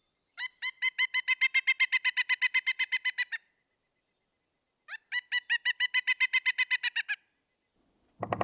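Pileated woodpecker calling: two long series of rapid, loud, evenly repeated notes at about eight a second, each series lasting two to three seconds, with a pause between them.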